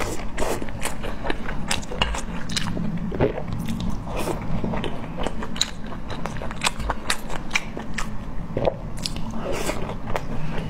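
Close-miked mouth sounds of someone chewing and biting into pan-fried dumplings: a continuous run of short, wet clicks and small crunches.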